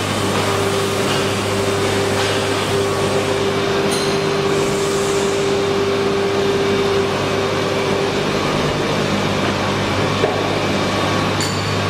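Steady drone of a running PVC shoe-sole injection moulding machine, with a steady whine over the hum for about the first eight seconds and a few light clicks.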